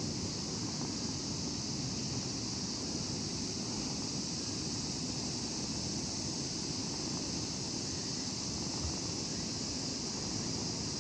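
Steady outdoor background noise: an even high hiss over a low rumble, unchanging throughout, with no distinct individual sounds.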